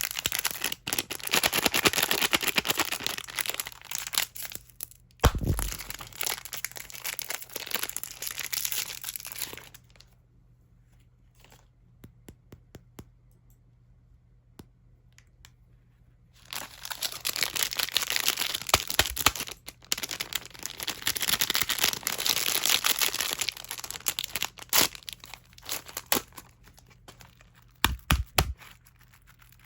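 Candy wrappers crinkling and being torn open in long stretches, with a quieter pause of a few seconds in the middle holding only light taps. A few dull thumps come through, one early and a couple near the end.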